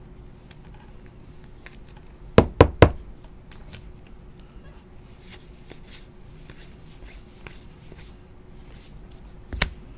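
Trading cards and a plastic card holder handled on a tabletop: three quick, sharp knocks a little over two seconds in and one more near the end, with faint light clicks of cards in between.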